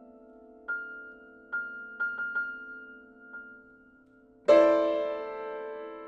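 Solo grand piano: a soft chord is held while a single high note is struck several times, three of them in quick succession. About four and a half seconds in, a loud, full chord is struck and left to ring.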